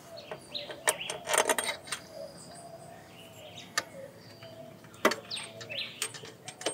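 A few sharp metallic clinks and a short rattle of hand tools and bolts as the bolts are started into the engine's accessory mount bracket. Birds chirp in the background.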